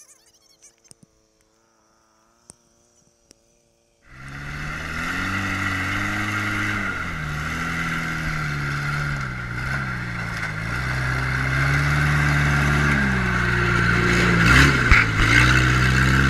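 Near silence for about four seconds. Then a Suzuki 4x4's small four-cylinder engine runs loud, its revs rising and falling repeatedly as it crawls through mud and snow.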